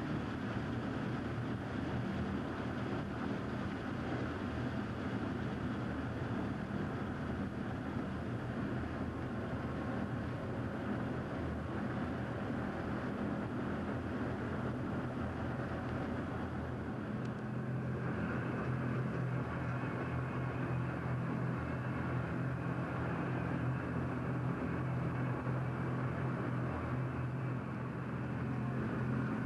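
SR.N4 hovercraft's gas-turbine engines and air propellers running steadily under way, heard on board as a continuous drone with a low hum. About two-thirds of the way through, the note shifts and grows slightly louder.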